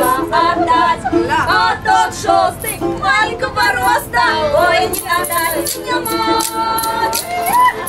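Several women singing a Russian folk song together at full voice, with the jingles of a tambourine and the clatter of a wooden plank rattle (treshchotka) keeping time.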